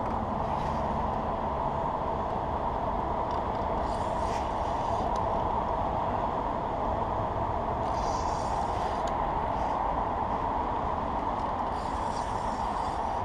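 Steady background rumble of traffic from the road bridge. Every few seconds it is broken by a brief rasping burst from the spinning reel as a big blue catfish is fought on the line.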